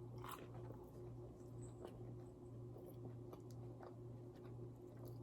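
Faint chewing of fast food, with soft, scattered mouth clicks over a steady low hum.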